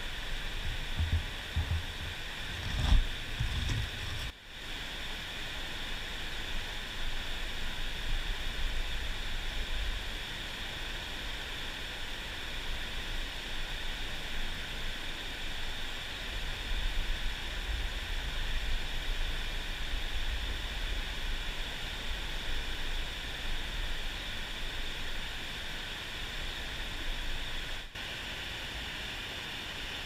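Fast mountain stream rushing over rocks, a steady hiss of water. A few low thumps sound in the first few seconds.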